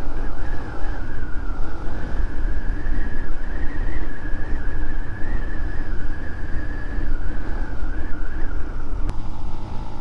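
Motorcycle engine running at a steady cruise, heard from the rider's seat with heavy wind rumble on the camera microphone. The engine note holds steady and eases off slightly near the end.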